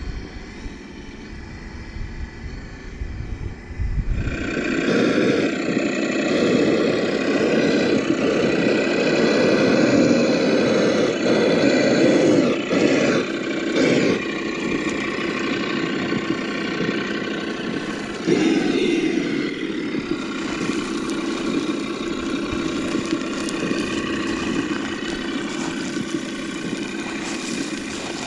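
Simulated engine sound from a Sense Innovations ESS Dual Plus sound unit, played through the speakers of a Traxxas TRX4 RC crawler as it drives. It comes in loudly about four seconds in after a low rumble, and its pitch shifts around eighteen seconds in.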